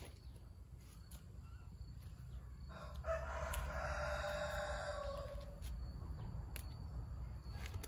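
A rooster crowing once, a single drawn-out call of about three seconds that starts about three seconds in and drops in pitch as it ends.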